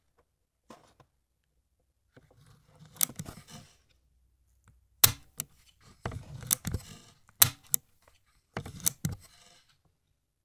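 Agfa Billy Compur folding camera being handled, its controls and mechanism worked by hand: a run of sharp mechanical clicks with short scraping and rustling between them, in bursts a second or two apart. The loudest clicks come about halfway through.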